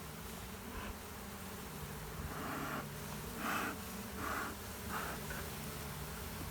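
Honey bees buzzing around an open hive, a faint wavering hum, with several short soft whooshes about two to five seconds in.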